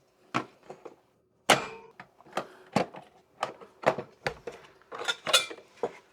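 Irregular clicks and knocks of hard plastic headlight parts being handled during disassembly, about a dozen sharp taps over several seconds.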